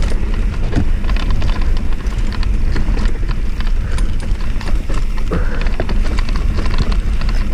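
Mountain bike running down a dry dirt trail: wind buffeting the microphone with a steady low rumble, over a continuous clatter of small clicks and knocks from the bike rattling over bumps.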